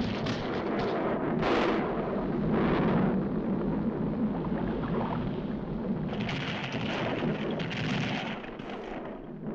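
Cartoon sound effects of an erupting volcano: continuous low rumbling broken by repeated explosive blasts, with a louder hissing burst from about six seconds in until near the end.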